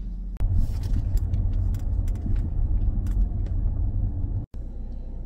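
Dodge Grand Caravan minivan driving along a park road, heard from inside the cabin: a low rumble of engine and tyres with frequent light clicks and rattles. The sound breaks off for an instant about four and a half seconds in, then the rumble goes on quieter.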